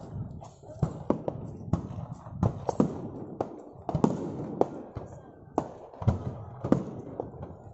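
Aerial fireworks bursting in quick, irregular succession: a dense run of sharp bangs over a continuous rumble and crackle.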